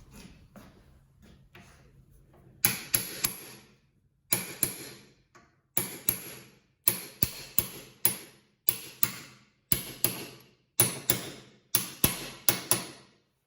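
Repeated sharp taps on metal in quick groups of two to four, each ringing briefly, as parts of an angle grinder are worked on during repair.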